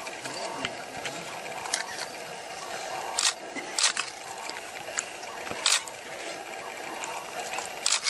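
Porcupine rattling its raised quills in short, dry bursts, about five in all, as a defensive warning.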